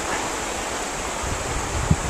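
River water rushing over shallow stony riffles, a steady hiss, with low wind rumble on the microphone in the second half and a short thump just before the end.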